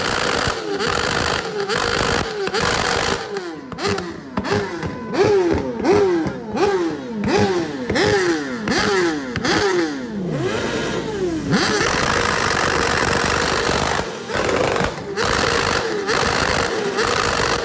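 Sport motorcycle engine revved hard again and again while the bike stands still, each blip snapping up in pitch and falling back, about one and a half a second. Past the middle there are a couple of seconds of steady, noisy running with no clear pitch, then lighter throttle blips.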